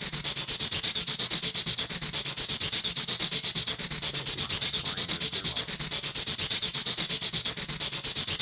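A rhythmic scratching, rubbing noise pulsing evenly about seven times a second, mostly a high hiss with a low hum beneath.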